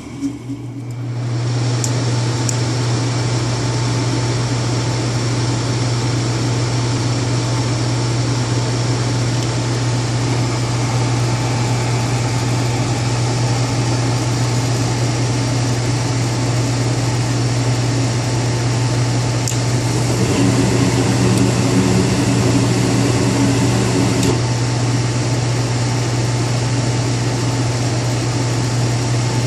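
Goodman furnace running: a loud, steady low hum over the rush of the blower air. A second, higher hum joins for a few seconds after about twenty seconds.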